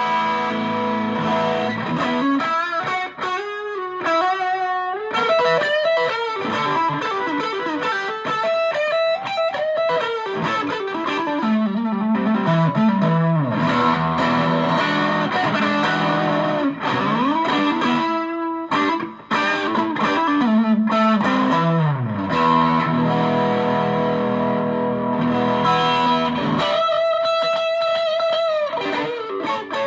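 Electric guitar played through a TC Electronic Dark Matter distortion pedal: distorted riffs and lead lines with string bends and slides, and held chords now and then.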